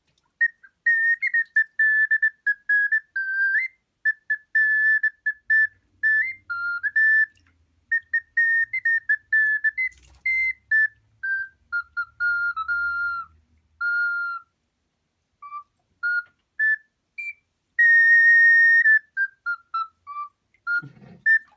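A high, pure-toned whistle-like melody played in many short, stepping notes, in brief phrases with pauses between them.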